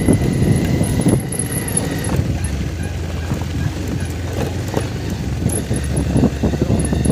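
Motorbike ridden over a bumpy dirt track: a low engine rumble under irregular knocks and rattles from the rough ground.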